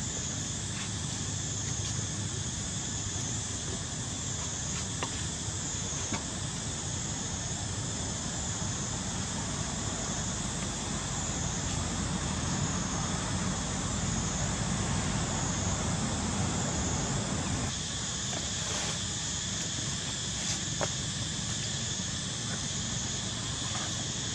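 Steady high-pitched insect chorus, gently pulsing, over a low rumble.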